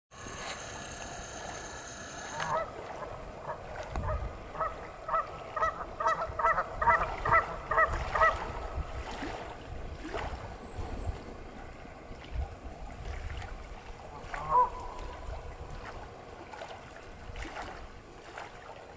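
Canada geese honking: a run of short honks, about two a second and quickening, for several seconds, then a single honk later on.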